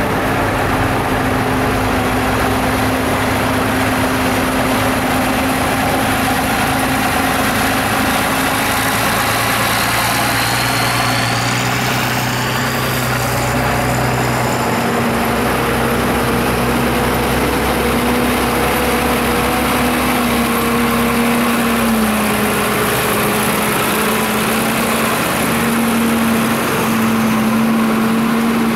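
Diesel tractor engines running steadily at low revs, with the engine note dipping and shifting slightly about three-quarters of the way through.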